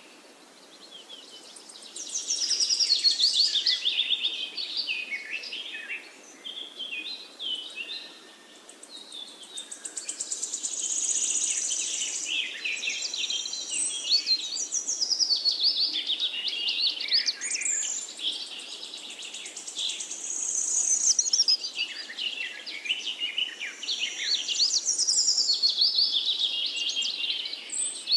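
Songbirds chirping and singing, many quick high calls overlapping, quieter for the first couple of seconds and again briefly about six to eight seconds in.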